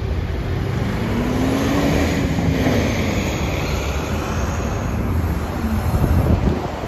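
A Nova Bus LFS city bus driving up and past through steady road traffic, with a constant low rumble of engines and tyres. About two seconds in, an engine note rises and then falls.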